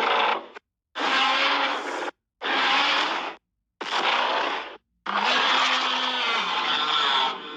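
The Godzilla roar sound effect from the 2021 film, played as separate roars cut apart by sudden silent gaps. There are four roars; the last is the longest, about two seconds, and it trails off into a quieter tail near the end.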